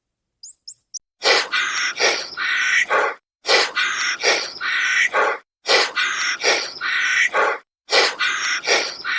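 A few short, high, rising chirps, then one loud animal call of about two seconds repeated over and over in identical copies with dead silence between them.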